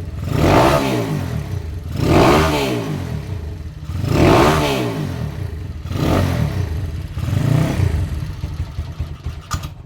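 Honda CB motorcycle engine through an open-baffle kleper exhaust, revved in five short throttle blips, the pitch rising and falling back each time, settling to idle in between. A short click comes near the end.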